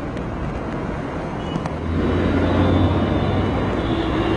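Flooded-street ambience: a steady wash of noise, with a motor vehicle's engine hum growing louder about two seconds in.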